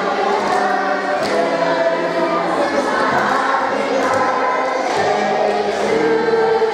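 Choir singing, many voices together.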